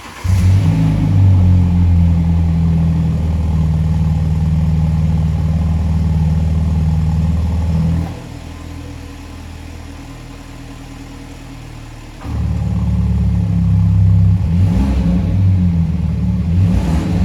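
BMW 220i's 2.0-litre turbocharged four-cylinder engine, heard through an exhaust with a bypass cutout valve, firing up at the start and then idling loud and steady. About eight seconds in it drops much quieter for roughly four seconds, then comes back loud, with a couple of short revs near the end.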